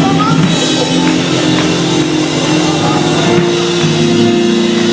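Live church band music: sustained keyboard chords over a drum kit.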